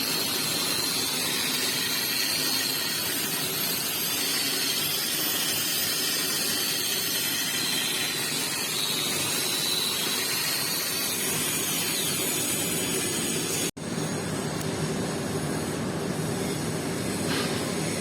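Steady hiss of a welding arc with a faint wavering high whine, broken by a sudden brief cut about fourteen seconds in.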